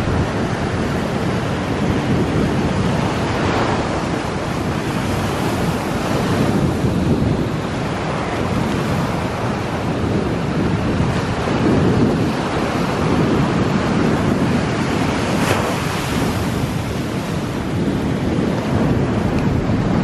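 Small surf breaking and washing up a sand beach, the wash swelling and easing in slow waves, with wind buffeting the microphone.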